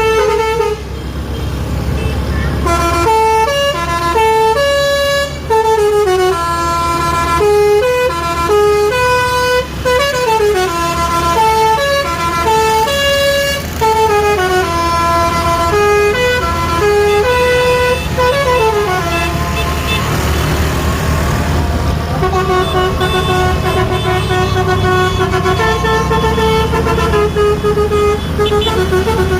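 Bus 'telolet' Basuri multi-tone air horn playing a tune in quick steps up and down in pitch, with the bus engine running underneath. About twenty seconds in the tune breaks off for a short rush of noise, then two tones alternate over and over.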